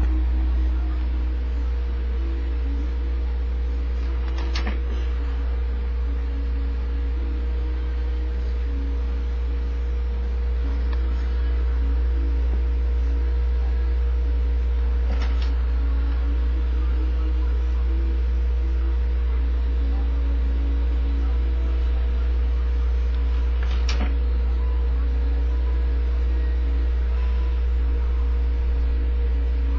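Steady low electrical hum from the running desktop computer, with a faint steady tone above it and a few faint clicks spaced several seconds apart.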